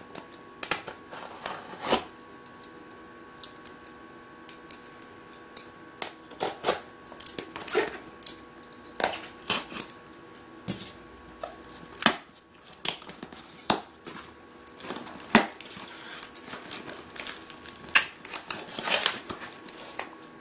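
Unboxing a small parcel: a utility knife slitting the plastic wrapping, then the wrap being torn and crinkled off and the cardboard box flaps opened. Irregular crackles, rips and scrapes over a faint steady hum.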